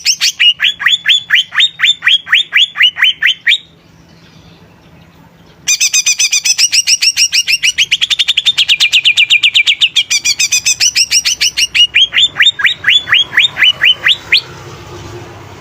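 Cucak ijo (green leafbird) in full song: fast runs of repeated sharp chirps, each note falling in pitch. The song pauses for about two seconds after the first few seconds, resumes, and stops shortly before the end.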